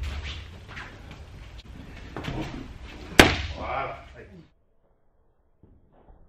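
A boxing glove striking a focus mitt with one sharp slap about three seconds in, the loudest sound, over gym room noise and indistinct voices. The sound drops away to near silence about halfway through.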